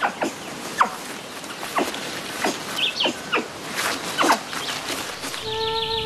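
Young capuchin monkeys squeaking and chirping as they play, short sharp calls coming irregularly two or three a second, some falling quickly in pitch. A flute-like music melody comes in near the end.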